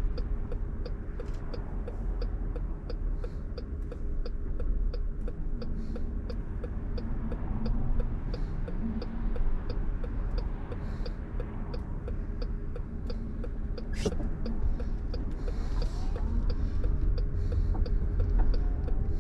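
Car cabin noise while creeping in traffic: a steady low rumble of engine and road. A regular light ticking, about two ticks a second, runs through the first half, and there is a single sharp click about three-quarters of the way in.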